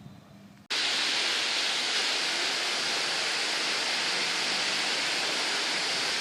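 Water pouring and splashing steadily over a travertine marble fountain, a continuous hiss of falling water that starts abruptly about a second in.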